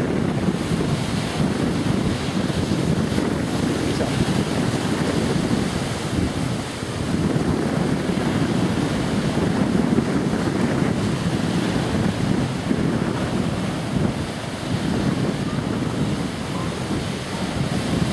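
Wind buffeting the microphone, in uneven gusts, over the wash of lake waves breaking on the shore.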